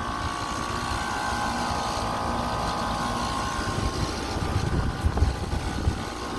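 Outdoor air-conditioning condenser unit running: a steady hum with a whine of several high tones, which weaken about a second or two in, over an uneven low rumble.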